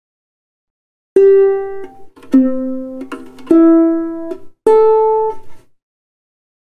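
Flight UTS-35 Ether Ultra travel ukulele's four open strings plucked one at a time, starting about a second in, in standard G-C-E-A order, each note ringing for about a second. The strings are in tune, checked against a clip-on tuner.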